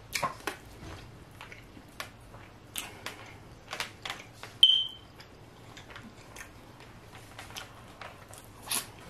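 Plastic fork clicking and scraping in a styrofoam takeout box and the small sounds of eating noodles, in scattered short taps. About halfway through, a single short, high electronic beep sounds, louder than everything else.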